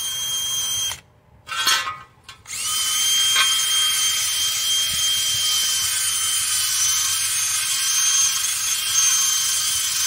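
Cordless drill spinning a wire brush against a rusty steel wheel rim, scouring off rust and scale: a steady high motor whine with a scratching hiss. It stops about a second in, gives a brief spurt, then runs steadily again.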